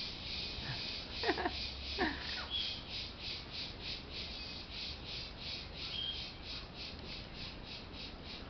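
A fast, even, high-pitched pulsing chorus of insects, about four to five pulses a second, with two short animal calls sliding down in pitch about one and two seconds in.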